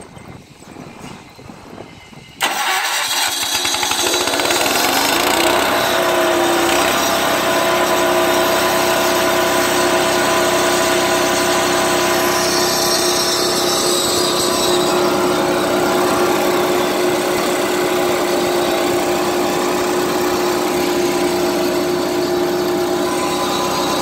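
Diesel engine of a walk-behind concrete floor saw starting: it catches suddenly about two and a half seconds in, climbs in speed over the next few seconds, then runs steadily.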